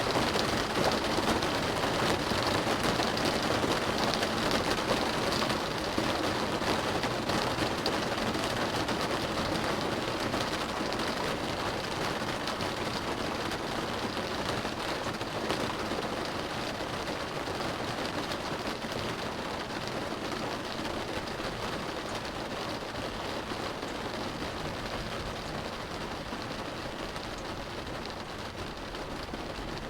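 Steady rain drumming on a car's roof and windows, heard from inside the car: a dense, even patter that eases off slowly.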